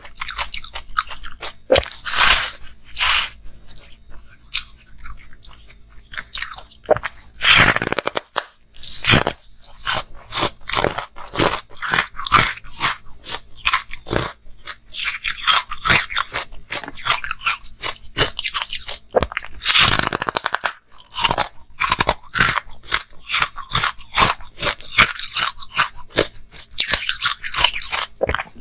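Close-miked ASMR eating: a run of bites and chewing with sharp, crisp crunches, a few louder bites standing out among denser chewing.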